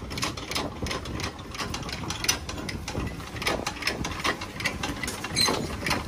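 Hand-cranked trailer tongue jack being wound, its gears clicking evenly about three times a second as the tongue is jacked to unhitch the trailer from the truck.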